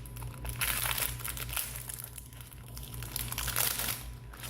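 Foil Pokemon booster pack wrapper crinkling in the hands as it is opened, in irregular rustling bursts.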